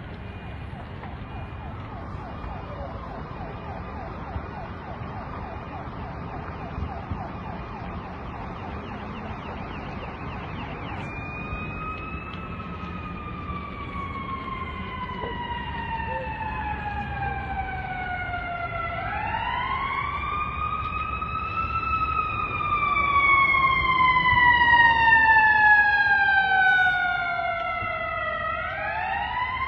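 Fire engine siren sounding a slow wail as it approaches: it comes in about a third of the way through, each cycle sliding slowly down in pitch and then swooping quickly back up, twice, growing louder. Before it there is only a low steady background rumble.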